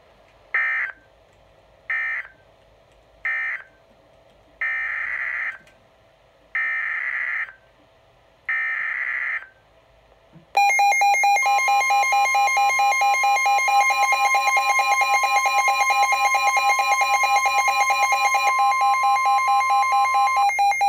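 Weather-radio emergency alert: six screeching bursts of digital SAME header data, the last three longer. About ten seconds in, the radio's loud, fast-pulsing, buzzy alarm sets off together with the steady 1050 Hz NOAA Weather Radio warning tone. This is the activation for a tornado warning.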